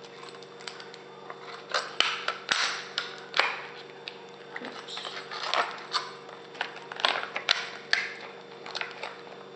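Hands working cut balloon rubber pieces onto the end of a cut plastic water bottle: irregular crinkling, rustling and clicking handling noises, starting about a second and a half in, over a faint steady hum.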